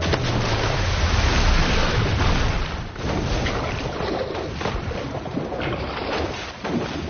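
A rush of splashing water as many bodies plunge into the sea. About three seconds in it gives way to muffled underwater bubbling and churning.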